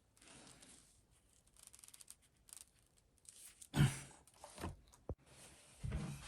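Small handling sounds of hand work on a fly rod's grip: light rustling and scraping, with a loud knock about four seconds in, a sharp click, and another knock near the end.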